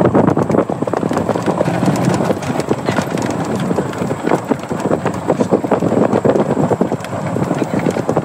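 Golf cart driving over a rough dirt and gravel track: a dense, irregular rattle and crunch from the tyres and the cart's body.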